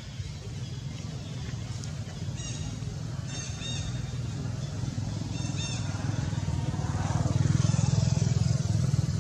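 A motor vehicle's engine, a low steady rumble that grows louder over the second half. A few short high chirps sound in the middle.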